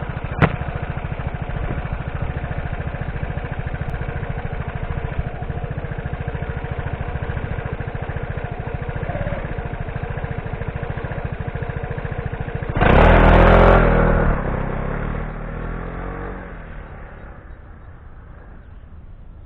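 Piaggio MP3 Yourban 300ie scooter's single-cylinder engine idling steadily, with a sharp click just after the start; about 13 seconds in it is opened up and pulls away, loud for a second or so and then fading. The run is made to check for an abnormal noise when moving off.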